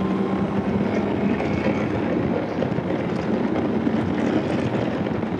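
BMW R 18 Bagger riding at freeway speed: steady wind rush on the microphone mixed with the drone of its 1802 cc boxer twin.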